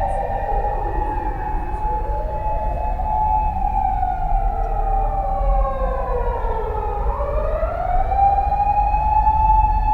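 Fire truck siren wailing in slow falling and rising sweeps, with two siren tones out of step: one dips and climbs back about a second in, the other about seven seconds in. A steady low rumble of the engine and road runs underneath.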